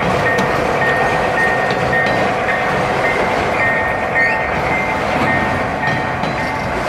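1:29 scale model freight train rolling past on the layout's track: a steady running noise of wheels and locomotive motors, with a high ringing tone repeating about twice a second.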